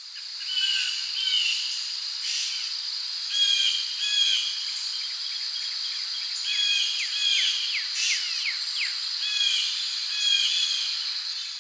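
Woodland ambience: birds singing repeated short chirping phrases, some with quick falling notes, over a steady high-pitched insect drone. It fades in at the start.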